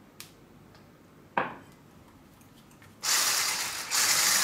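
Electric hand mixer switching on about three seconds in and running steadily at low speed, its beaters churning cream into a whipped egg-and-sugar batter in a glass bowl. Before that, a single light knock.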